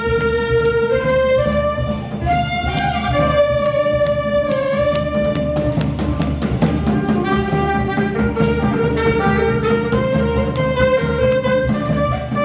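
Saxophone playing a melody of long held notes that step up and down, over a steady accompaniment.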